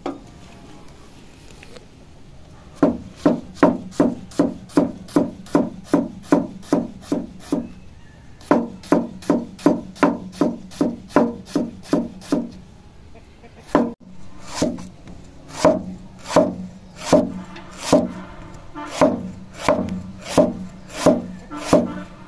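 A large kitchen knife slicing a banana blossom crosswise on a thick wooden chopping block. It makes steady chops, each a sharp knock on the wood, about two a second, with a short pause about halfway through.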